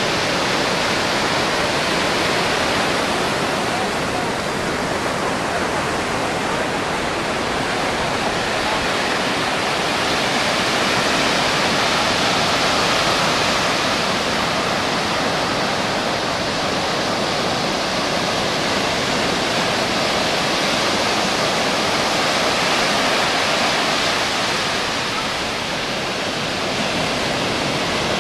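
Ocean surf breaking and washing up the sand: a steady rush that swells and eases slowly, dipping briefly near the end.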